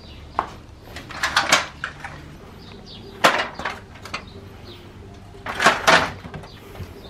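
Aluminium stepladder clanking and rattling as it is picked up and handled, in three clusters of metal knocks about a second in, just after three seconds, and near six seconds.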